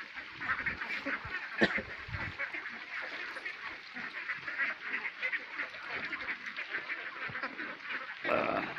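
Many domestic ducks quacking at once, a dense unbroken chatter of overlapping calls, with one sharp knock about one and a half seconds in.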